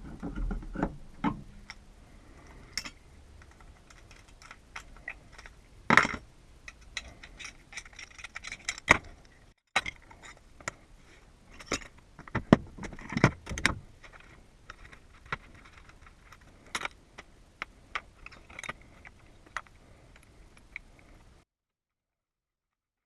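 Keys and small metal lock parts clicking and rattling as a door lock cylinder is handled, in scattered short clicks with a few louder knocks; the sound stops abruptly near the end.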